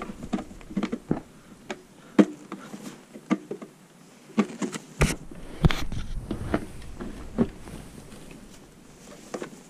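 Irregular clicks, knocks and rustling as a floating reaper Halloween prop, its support poles and cloth robe, is handled and moved about, with a couple of heavier thumps about five seconds in.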